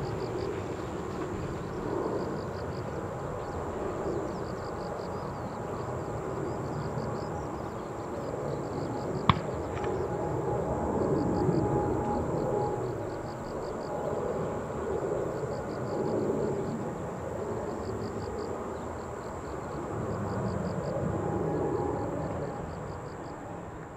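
Boeing 777-300 airliner climbing away after takeoff, its jet engines heard from afar as a steady, broad rumble that swells and fades, loudest at about 11 seconds and again near the end. A single sharp click about nine seconds in, and a high, rapid chirping that comes and goes throughout.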